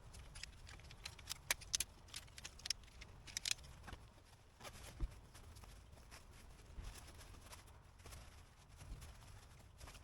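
Light clicks and taps of cookware and utensils being handled at a camp stove. They come quickly in the first few seconds, then grow sparser.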